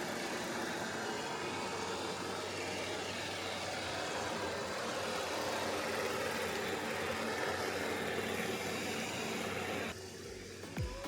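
Robot vacuum cleaner running with a steady whirring hum that cuts off suddenly near the end.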